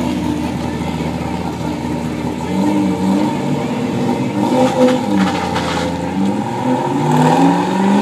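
Chevrolet Corvette C5's V8 engine and exhaust as the car pulls away and accelerates, the pitch going up and down with the revs and climbing near the end.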